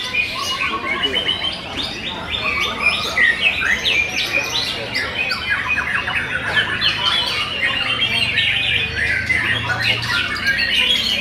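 White-rumped shamas singing together in a contest line-up: a dense, unbroken tangle of overlapping whistles, chirps and rapid trills, with no pause.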